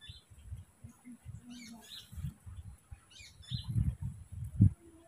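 Small birds chirping in short high calls, three or four times, over soft low thumps and rustling from handling close to the microphone.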